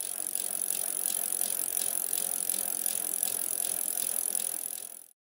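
Bicycle freewheel ticking in an even run over a steady hiss, fading in at the start and fading out near the end.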